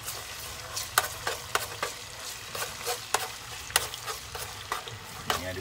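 Food sizzling as it fries in a hot pan while a utensil stirs it, with sharp clacks of the utensil against the pan every second or so.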